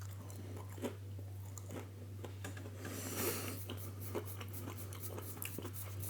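A person chewing a mouthful of breaded vegan southern fried strip, with soft, irregular clicks and smacks of the mouth over a steady low hum.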